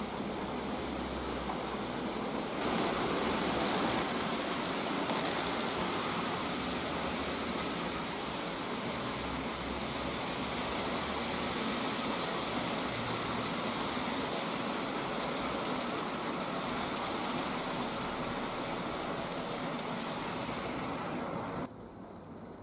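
Model train running on its track: a steady rolling rattle of the locomotive and freight wagons' wheels on the rails, louder from about two and a half seconds in, then dropping off abruptly near the end.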